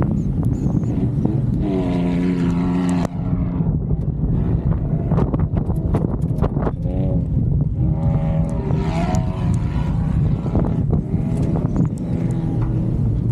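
A motor vehicle's engine running steadily, with wind noise on the microphone. Pitched sounds that bend up and down come in a couple of seconds in and again in the middle.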